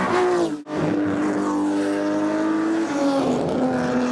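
A racing car engine under acceleration. Its pitch climbs slowly, then drops sharply near the start and again about three seconds in, as at gear changes. The sound cuts out briefly just over half a second in.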